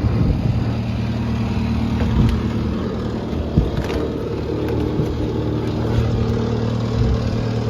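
Diesel engine of a Case TV370 tracked compact loader running steadily at idle. There is a single short knock about three and a half seconds in.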